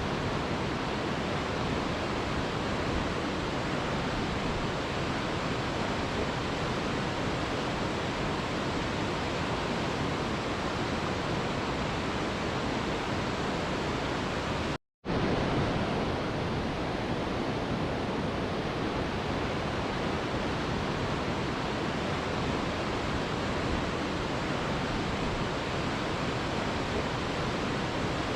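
Steady, even rushing of a waterfall, used as white noise. It cuts out completely for a split second about halfway through, then resumes.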